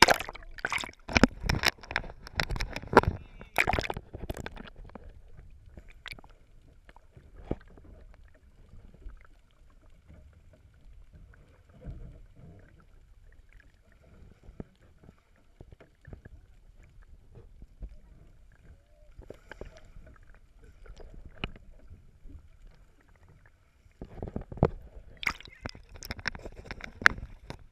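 GoPro camera in its waterproof housing dipped into the sea. For the first few seconds water splashes and rushes over it. Then comes a long stretch of muffled underwater sound with scattered faint clicks and gurgles, and splashing again near the end as it comes back to the surface.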